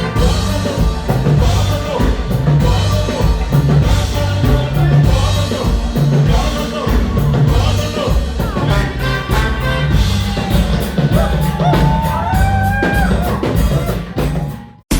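Live Afro-funk band playing a steady, driving bass and drum groove. A high melody line comes in over it in the second half. The music cuts off abruptly just before the end.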